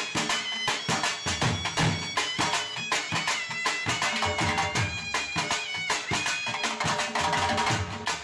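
Background music: a wind-instrument melody over a steady drum beat.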